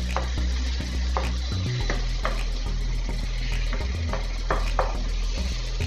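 Tomato and spice masala sizzling in hot oil in a nonstick frying pan as it is fried, while a wooden spatula stirs it, scraping and tapping against the pan a couple of times a second.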